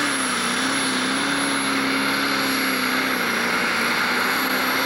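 Pro Stock pulling tractor's turbocharged diesel engine running at full power, pulling a weight-transfer sled down the track. The engine note dips slightly just after the start and then holds steady, with a high thin turbo whine above it.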